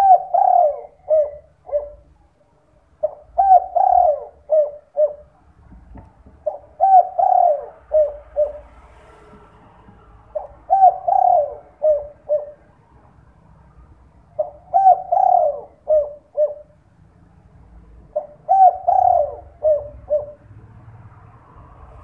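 Spotted dove (derkuku) cooing in repeated phrases, six in all, one about every three and a half to four seconds. Each phrase is a run of low, gliding coos ending in a couple of short clipped notes, the 'kuk 2' song type.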